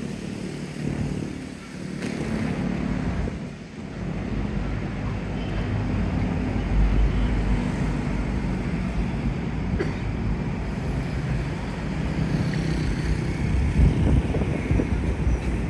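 Steady low engine rumble of motor traffic, with wind gusting on the microphone.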